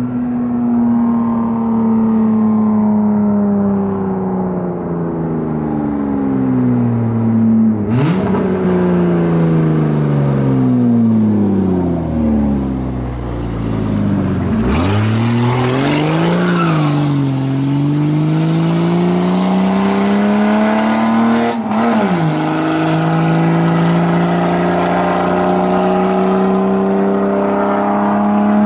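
1986 BMW E30 325e's 2.7-litre M20B27 inline-six, running without catalytic converter or mufflers, out of sight with its engine note sinking slowly for the first half, then climbing again. It is broken by two short, sharp rev blips, and ends with a steady rise in pitch under acceleration.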